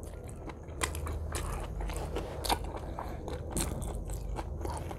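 A person biting and chewing a soft tortilla, a rapid, irregular run of small mouth clicks and smacks.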